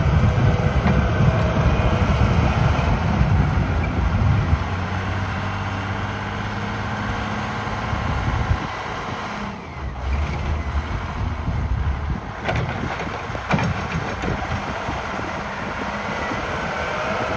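Komatsu WA100 wheel loader's diesel engine running. It is loud for the first few seconds, then settles to a lower, steadier note, with a brief drop about halfway and a couple of short knocks after it.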